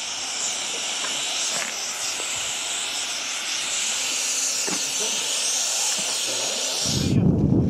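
Steady high hiss with a few faint ticks. About seven seconds in it stops abruptly, and low wind rumble on the microphone takes over.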